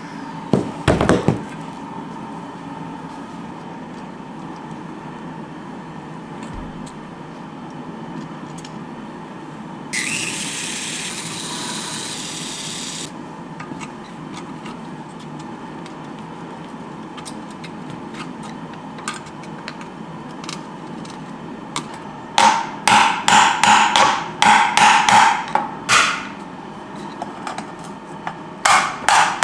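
Tools at work on a car's rusted rear suspension: a single knock about a second in, a hiss lasting about three seconds, then near the end a rapid run of loud metal blows.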